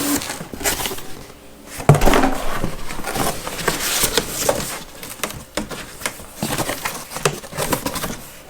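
Cardboard packing being pulled and shifted inside a shipping box: irregular rustling, scraping and knocks, with a sharp thump about two seconds in.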